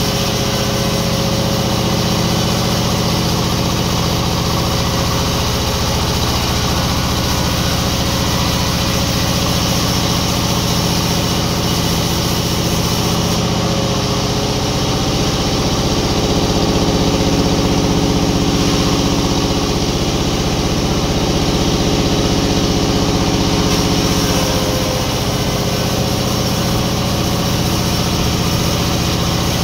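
Engine-driven sawmill machinery running steadily with a loud, even hum, swelling slightly for several seconds in the middle.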